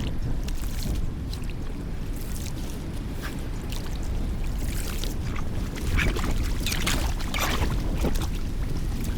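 Water sloshing and splashing with irregular sharp splashes, most of them in the second half, over a steady low rumble of wind on the microphone.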